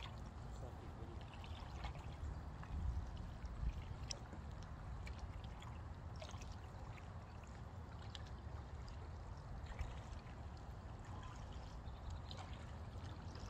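Kayak paddling on a calm river: water dripping and trickling off the paddle blades with small splashes, over a low wind rumble on the microphone.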